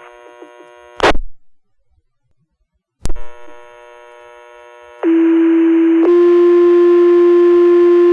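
Fire department two-tone sequential pager tone-out over a radio scanner. There is a squelch burst about a second in and another radio click near three seconds. About five seconds in comes a steady low tone for about a second, then a slightly higher steady tone held much longer. It is the tone sequence that sets off the firefighters' pagers in a pager test.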